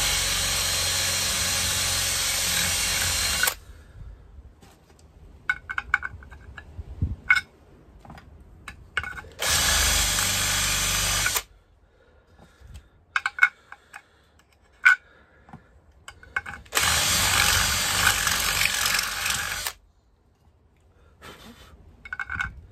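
Cordless drill with a step drill bit boring out a hole in a plate clamped in a vise, widening it one step at a time. There are three steady runs of a few seconds each, with scattered clicks and knocks between them.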